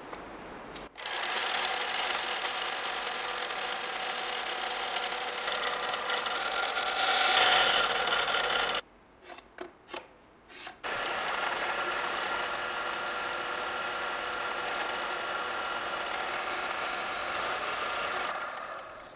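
Electric drill press running and drilling steel angle iron: a steady motor whine with cutting noise, in two long spells. Between them, a pause of about two seconds holds a few brief knocks.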